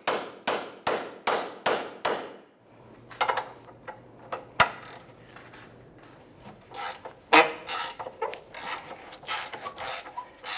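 A hammer drives a twist extractor socket onto a heat-softened broken subframe bolt stud, with about six quick ringing blows on metal in the first two seconds. After a pause, two single sharp knocks, then a run of rough scraping as the rusted stud is worked loose.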